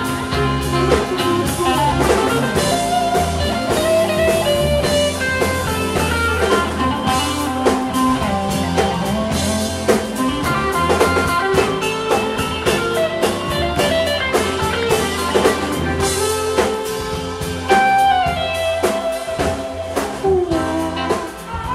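Live blues-rock band playing an instrumental passage: drum kit, bass and electric guitar keep a steady groove while a lead line slides and bends above it.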